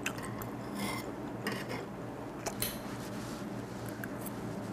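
Metal chopsticks clicking lightly against small ceramic sauce dishes several times, with one short ring about a second in, as a slice of raw fish is dipped in ssamjang.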